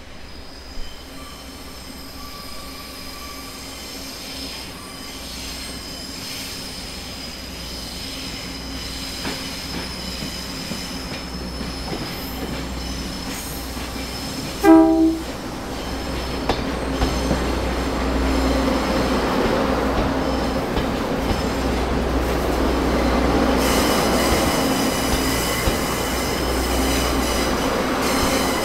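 Pingxi Line train approaching, its running noise growing steadily louder, with a steady high wheel squeal. Halfway through there is one short horn blast.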